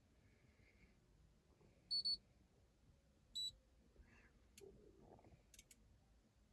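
Short high electronic beeps: a quick double beep about two seconds in, then a single beep a second and a half later, with a few faint taps afterwards.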